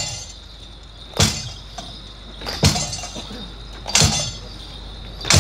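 Folk-dance percussion between sung verses: four evenly spaced strikes about a second and a half apart, each a low thud with a bright metallic clash that rings briefly.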